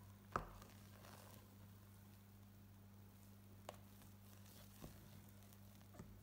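Near silence over a low steady hum, with a few faint taps as a spatula lifts and folds thick chocolate sponge batter in a stainless steel mixing bowl. The first tap, about half a second in, is the loudest.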